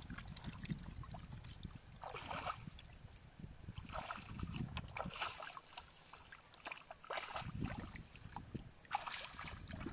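Footsteps sloshing through shallow muddy water and wet grass, a splash every second or two, over a low wind rumble on the microphone.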